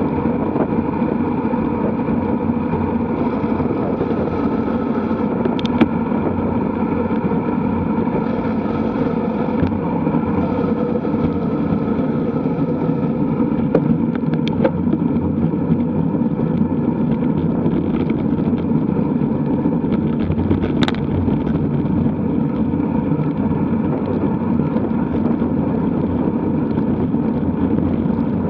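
Steady rush of wind over the microphone of a road bike riding at speed in a group, mixed with tyre noise on the tarmac. A few sharp clicks stand out briefly.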